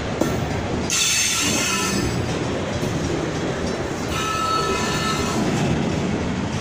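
Freight train cars rolling past close by, from lumber-loaded centerbeam flatcars to empty flatcars, with a steady heavy rumble of wheels on rail. A high-pitched wheel squeal rises about a second in and again about four seconds in.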